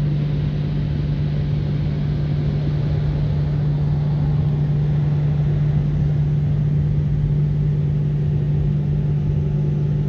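Drying blowers of an automatic car wash running over the car, heard from inside the closed cabin. A steady drone of a low motor hum and rushing air, growing a little louder.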